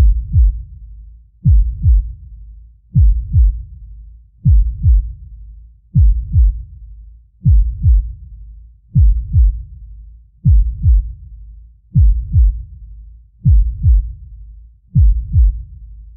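Deep heartbeat sound effect: slow, steady double thumps, lub-dub, repeating evenly about every one and a half seconds, around forty beats a minute.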